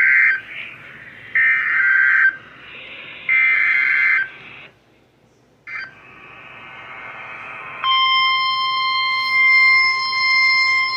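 Emergency Alert System broadcast over weather radio: three one-second bursts of buzzing SAME header data tones, the coded start of a new warning. After a brief gap with a click and hiss, the steady single-pitched NOAA Weather Radio warning alarm tone starts about eight seconds in and holds.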